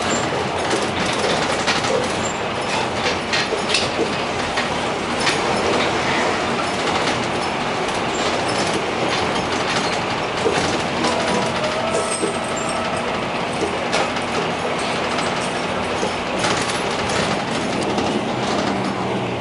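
Interior noise of an old Ikarus city bus under way: steady engine and road noise, with the body and fittings clicking and rattling all through.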